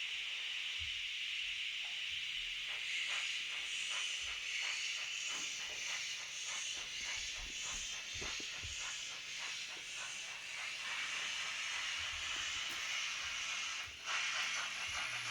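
Sound decoder of a model steam locomotive (ESU LokSound V5) playing steam sounds through the model's small speaker: a steady hiss, with a run of evenly spaced chuffs from about two seconds in until about eleven seconds. Near the end the hiss breaks off briefly and comes back louder.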